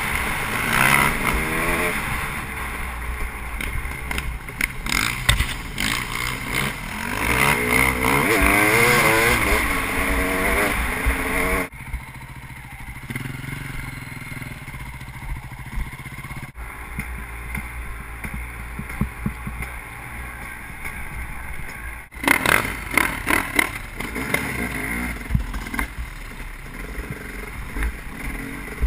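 KTM EXC enduro motorcycle engine revving up and down over rough trail ground, loudest in the first twelve seconds. The sound breaks off suddenly three times and returns quieter, with sharp knocks and clatter about twenty-two seconds in.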